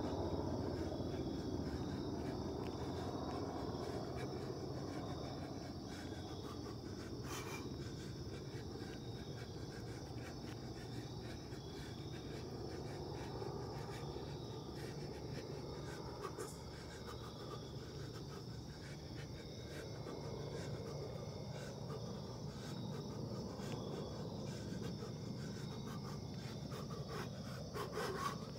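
Steady high-pitched insect chorus over a low background rumble, with a faint click once.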